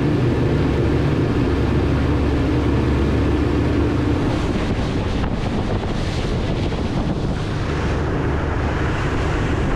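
Three Suzuki outboard motors running steadily with the boat under way: a constant low drone under the rush of wind on the microphone and the churning wake.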